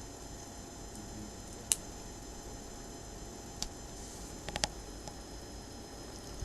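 Four short sharp clicks of plastic Lego pieces being handled: one about two seconds in, the loudest, then one past the middle and a quick pair soon after, over a faint steady hum.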